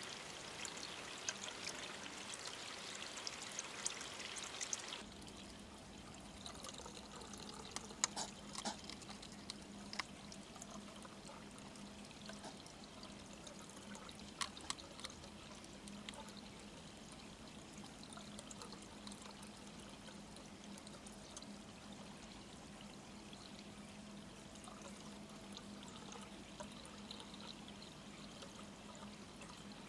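A steady trickle of running water, louder for the first five seconds and quieter after, with a low steady hum and a few sharp clicks around the middle.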